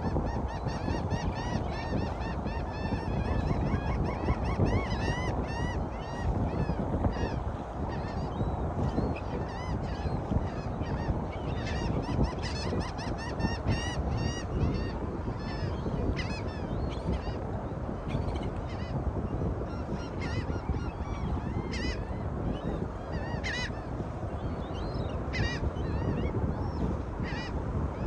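A flock of birds calling over and over: many short calls overlapping, each rising and falling in pitch, over a steady low rush of wind and water.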